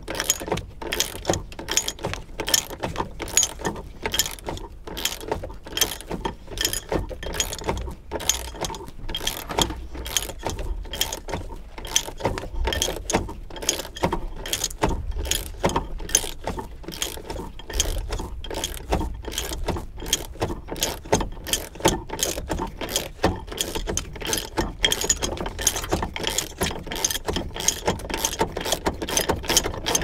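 Hand ratchet clicking in a steady, quick run of sharp clicks as it backs out a seat belt's upper anchor bolt.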